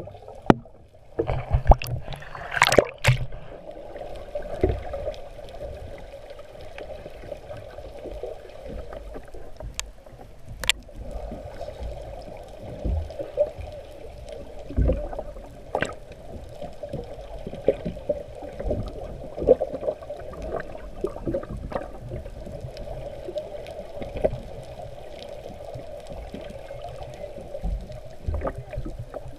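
Underwater sound picked up by a camera just below the surface: a steady hum with scattered gurgles and soft knocks. Loud splashes and knocks in the first three seconds as the camera moves at the waterline.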